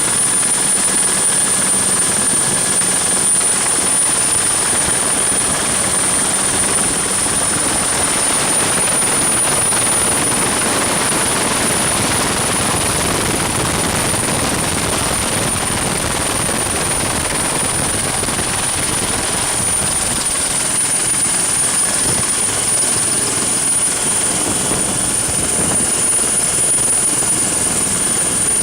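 Helicopter in flight: a steady, unbroken rotor and engine noise with a thin, constant high whine above it.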